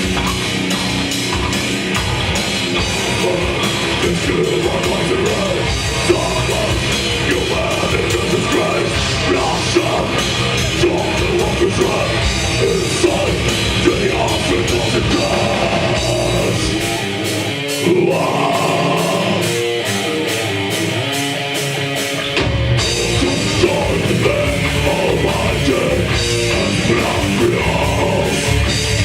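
A death metal band playing live, with distorted guitars and drums. About 17 seconds in, the low end drops away for a few seconds, then the full band comes crashing back in.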